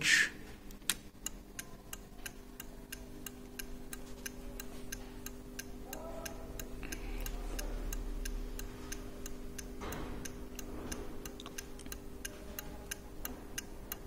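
Automotive turn-signal flasher relay clicking steadily, about three clicks a second, as it switches the hazard warning lamps on and off: the hazard circuit is working. A faint steady hum runs underneath.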